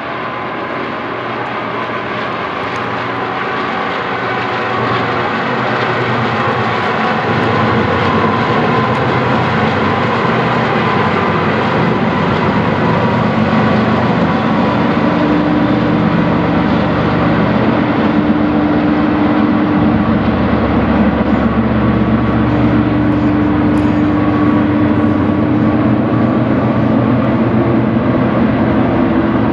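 Four BNSF diesel-electric locomotives hauling a double-stack container train, their engines giving a loud, steady drone. It grows louder over the first several seconds as they approach and holds as they pass below.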